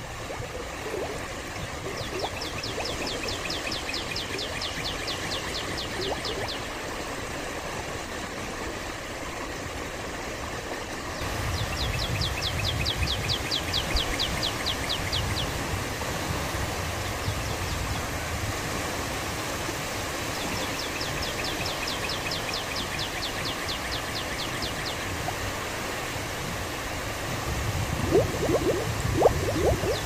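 Small waves washing and lapping in shallow water at the shore, a steady rushing wash that swells a little about eleven seconds in. A high, fast ticking trill about four seconds long comes three times, and a few short rising chirps sound near the end.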